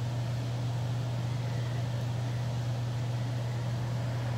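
Steady low hum with an even background hiss and no change or breaks.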